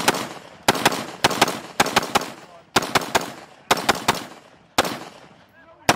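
F1 Firearms BDR-15 AR-15 rifle fired semi-automatically in a string of about eight shots in six seconds, each a sharp crack followed by a short echo.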